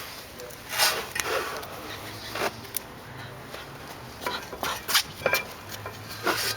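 Irregular clinks and knocks of hand tools and brake parts being handled, several separate sharp strikes spread across a few seconds.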